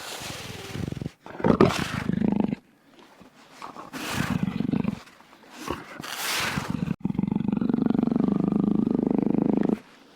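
A wild cat calling: a series of rough, growling roars separated by short pauses, ending in one long, steady growl with a fast flutter that lasts nearly three seconds.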